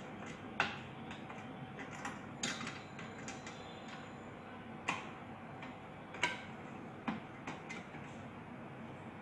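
Scattered light clicks and taps, about five over several seconds and the first the loudest, as the metal parts of a disassembled electric iron's soleplate assembly and its thermostat control rod are handled.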